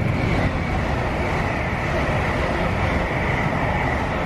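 Electric passenger train running through the station at speed without stopping: a steady, loud rush and rumble of the train and its wheels on the rails.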